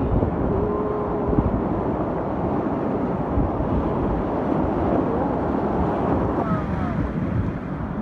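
Steady rush of whitewater river rapids heard from a raft running through them, with wind buffeting the microphone.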